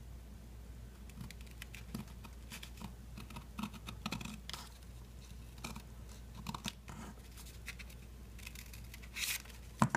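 Scissors cutting through folded layers of paper in a series of short snips, with a louder burst of paper noise near the end.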